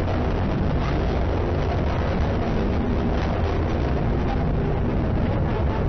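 H-IIA 202 rocket in ascent, its LE-7A main engine and two solid rocket boosters heard as a loud, steady, deep rumble.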